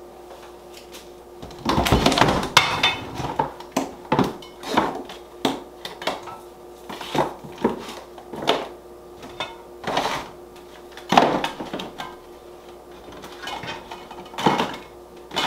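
Kitchen clatter of dishes, pots and utensils being handled and set down: a burst of knocks and clinks about two seconds in, then single knocks every second or so, over a steady hum.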